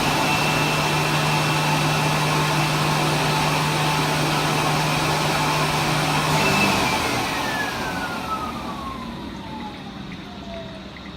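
A blower-type motor running with a rush of air and a steady high whine, then switched off about six and a half seconds in and winding down, its whine falling steadily in pitch as the rush fades.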